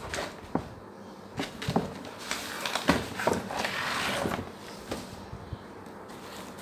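Packaging being handled and opened: a series of knocks and taps, with a stretch of rustling and scraping in the middle.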